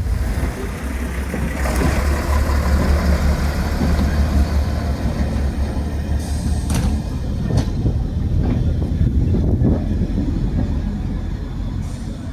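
Diesel engine of a preserved diesel train running under power as the train pulls away, with a strong low drone, followed by a few sharp knocks from the wheels passing over rail joints from about six seconds in.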